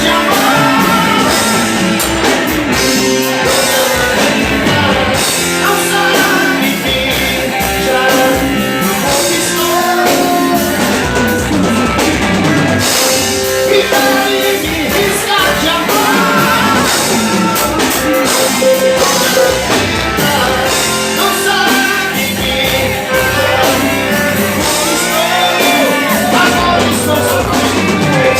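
Loud live band music: drum kit and guitar, with a voice singing at times.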